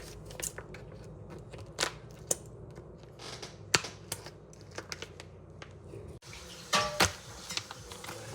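Hands handling and opening a squishy toy's plastic packaging: scattered light clicks and taps, the sharpest about four seconds in and a short cluster near the end.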